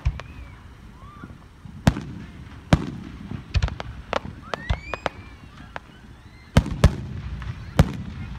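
Aerial firework shells bursting in a series of about seven sharp bangs, some close together and two in quick succession a little after the middle.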